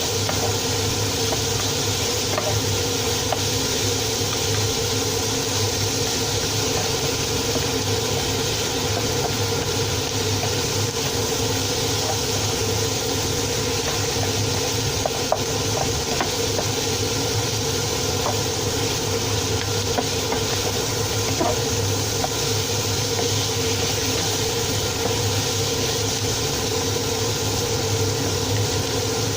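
Steady kitchen noise while the stew cooks: an even hiss with a low hum running under it and a few faint clicks.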